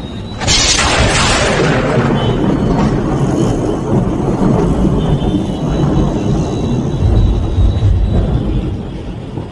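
Heavy rain pouring, over a deep steady rumble. About half a second in, a loud hissing surge comes in and fades over the next couple of seconds.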